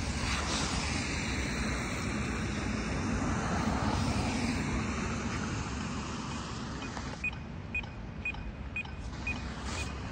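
Street noise from passing car traffic and wind. From about seven seconds in, a pedestrian crossing signal ticks steadily about twice a second.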